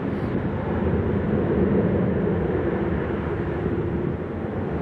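Jet engines of a DHL twin-engine cargo jet climbing away after takeoff: a steady, broad rumble with a faint low hum in it.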